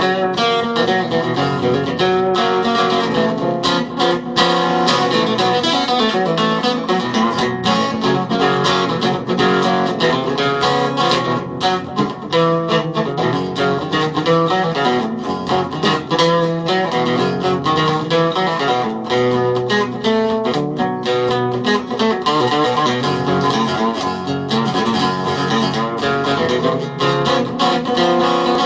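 Acoustic guitar played in a blues style, an instrumental stretch of quick plucked notes and strums with no singing.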